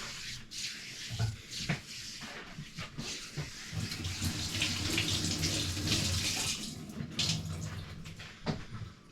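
Water running from a kitchen tap into a sink, swelling in the middle and easing off near the end, with a low hum of the pipes under it while it runs strongest.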